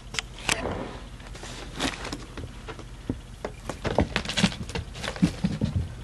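Irregular close rustling, scuffing and light knocks, denser and louder in the second half. This is handling noise from a camera brushing against a carpeted cat tree.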